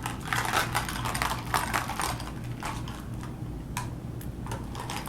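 Fast-food packaging and food being handled close to the microphone: quick, irregular crinkles, taps and clicks.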